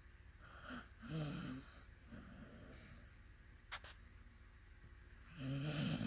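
American bulldog snoring in deep sleep: two loud snores, about a second in and near the end, with a fainter breath between them. A short click sounds just past the middle.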